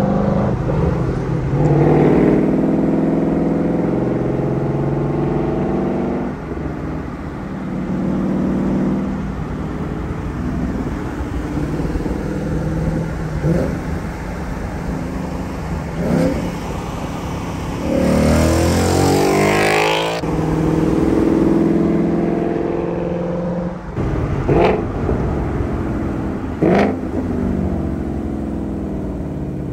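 A 2022 Ford Mustang Mach 1's 5.0-litre V8 running through an aftermarket Steeda mid pipe and active exhaust as the car drives alongside, the note swelling and easing with the throttle. About two-thirds through, the revs climb steeply under hard acceleration and then drop off sharply. Several short, sharp exhaust blips stand out.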